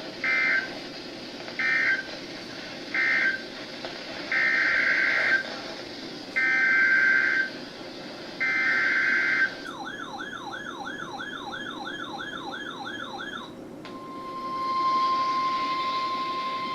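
Emergency Alert System SAME data bursts, the harsh two-tone digital squawk. Three short end-of-message bursts are followed by three longer header bursts. Then comes a fast warbling, siren-like tone, sweeping up and down about two and a half times a second for roughly four seconds. About fourteen seconds in, the steady 1050 Hz NOAA Weather Radio warning alarm tone begins, announcing the next warning.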